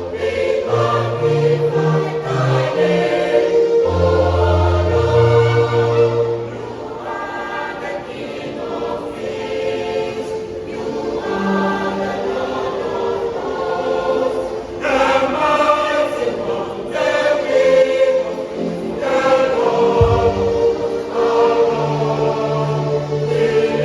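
Junior choir singing a gospel song in parts, with low held bass notes underneath at times.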